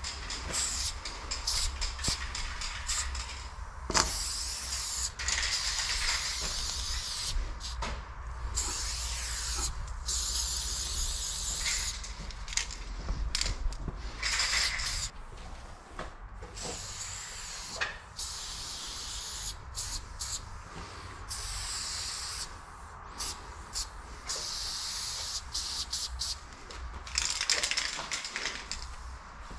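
Aerosol spray paint can hissing in repeated bursts of one to a few seconds, with short breaks between them, as lines and fill are sprayed onto a brick wall.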